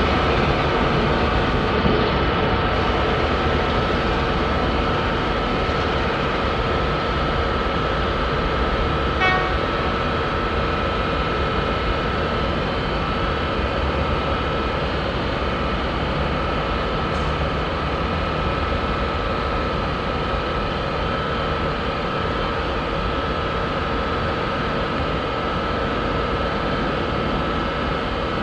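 Diesel locomotives, a T class and a P class, running under load as they haul a train of carriages away: a steady engine drone with a steady high whine over it, easing slightly as they draw off.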